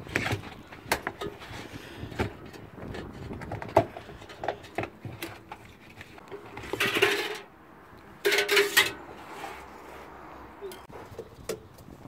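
Hands working a washing machine's rubber door seal off the drum: scattered light clicks and knocks of handling, and two short rough rubbing sounds a little past the middle.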